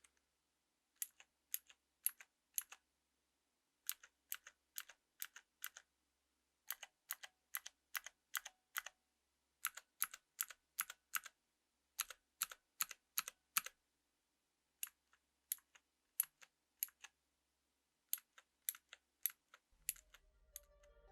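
Kailh Pro Light Green click-jacket switches on a mechanical keyboard, pressed one key at a time: sharp clicks in short runs of four to seven, about two a second, with pauses between runs.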